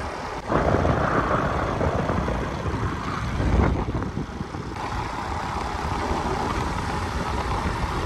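Wind and road noise from a moving vehicle travelling along a paved road: a steady noise without a clear engine note that comes up sharply about half a second in, with a low gust a little past three and a half seconds.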